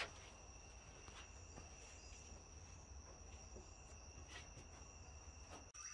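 Faint night chorus of crickets trilling steadily at two high pitches, with a few light ticks over it.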